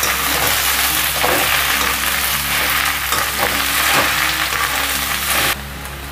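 Green amaranth leaves sizzling in hot oil in a wok while being stirred and turned with a spatula, with a few scrapes of the spatula. The sizzle cuts off suddenly about five and a half seconds in.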